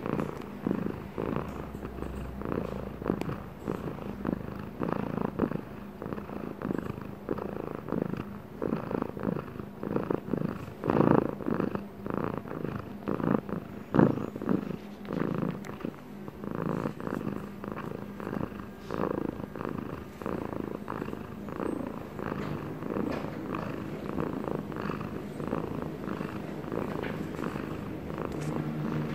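Domestic cat purring steadily right at the microphone, with a couple of louder moments about 11 and 14 seconds in.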